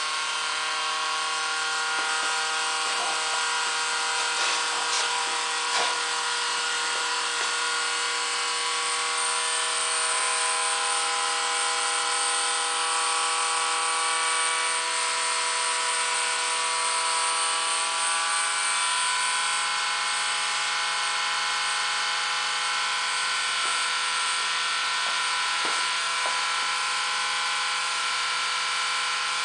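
Steady whine of small electric motors running, several steady tones at once over a hiss; a few of the lower tones fade out a little past the middle.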